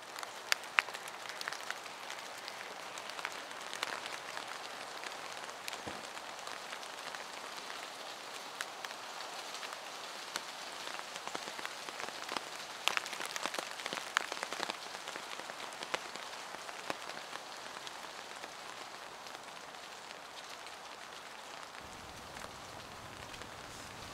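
A stream of urine splattering steadily, with scattered small crackles through it.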